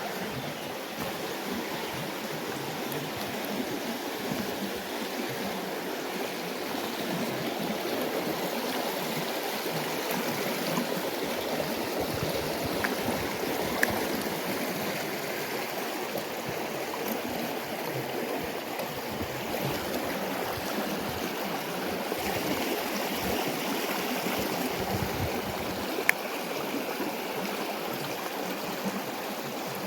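Mountain trout stream rushing steadily over rapids, an even wash of water noise, with a couple of faint clicks about halfway and near the end.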